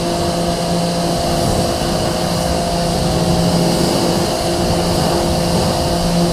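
Ryobi pressure washer running with a steady motor-and-pump hum, its wand spraying a hissing jet of water onto a car's fender and wheel to rinse off foam.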